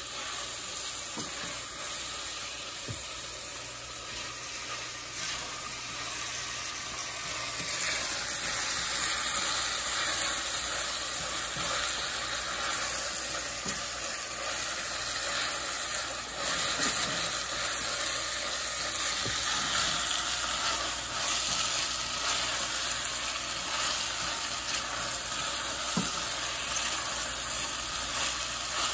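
Onions and whole garlic cloves sizzling as they sauté in a pan, the sizzle growing louder about eight seconds in, with a few faint knocks scattered through it.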